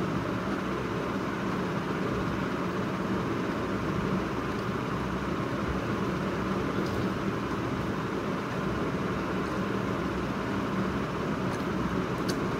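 A steady whooshing hum of background machine noise with a low drone in it, plus a few faint clicks near the end.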